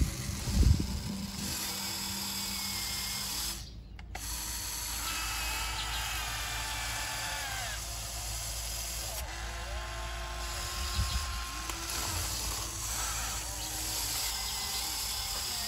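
Remote-control model hydraulic excavator working: its hydraulic pump and motors whine and hum, the pitch rising and falling as the boom, arm and bucket move through muddy water. There is a loud knock about half a second in, and the sound briefly cuts out just before four seconds in.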